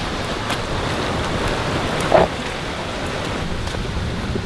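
Steady rush of falling and flowing water from a waterfall and creek, with one brief louder sound about two seconds in.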